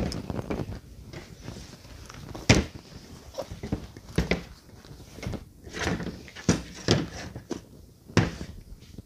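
Loose shoes being rummaged through and pulled apart in a cardboard box: irregular knocks and thuds with rustling between them, the sharpest knock about two and a half seconds in.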